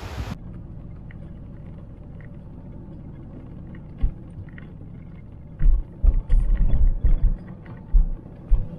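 Camper van driving slowly, a steady low engine and road rumble, with a run of heavy low thumps between about five and a half and eight and a half seconds in.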